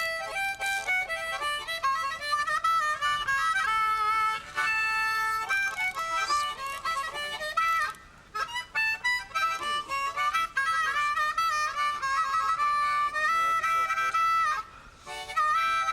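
Harmonica music: a melody of held notes, with short breaks about eight seconds in and again near the end.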